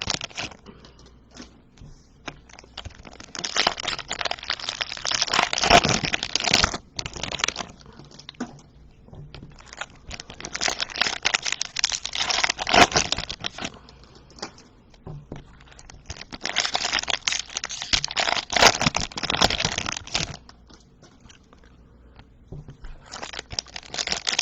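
Trading-card pack wrappers being torn open and crinkled by hand, in four long stretches of crackling with small clicks in between.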